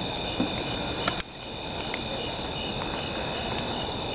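Crickets chirping steadily in a pulsing high trill over steady hiss, with a couple of faint clicks in the first second or so.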